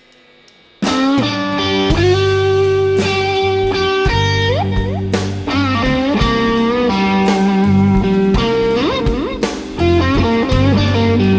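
Live blues band starting a song: after a brief quiet moment the full band comes in at once, with electric guitar bending notes over bass and drums.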